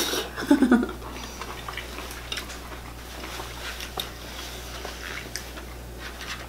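Soft eating sounds at a table: chewing, with scattered faint clicks from handling boiled lobster and crab shells. A brief murmured voice comes about half a second in.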